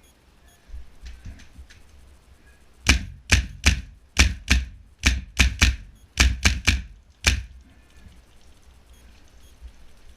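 An HPA-powered airsoft rifle firing about a dozen quick single shots in an uneven string lasting about four seconds, each a sharp crack.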